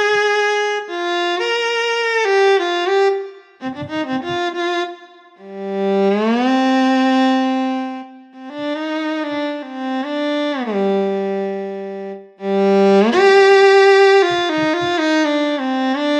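Physically modelled solo viola from SWAM Solo Strings v3 playing short legato phrases, with slides between notes. There are brief breaks about 3.5 seconds and 12 seconds in.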